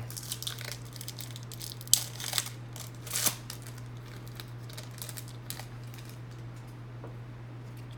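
Trading card pack wrapper crinkling and tearing as the pack is ripped open, with sharp crackles about two and three seconds in, then quieter handling. A steady low hum runs underneath.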